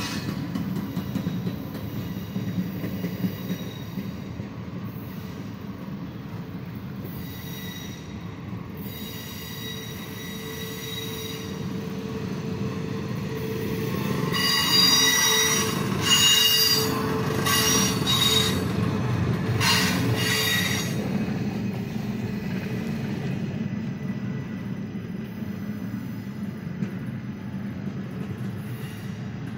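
Double-stack intermodal freight cars rolling past on a downgrade: a steady rumble of steel wheels on rail with high-pitched squealing from the wheels, loudest in the middle stretch.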